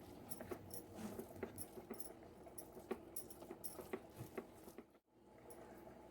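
Faint, irregular small clicks and taps of fingers rubbing masala paste over a whole fish on a plate and working it into the slits. The sound cuts out abruptly about five seconds in.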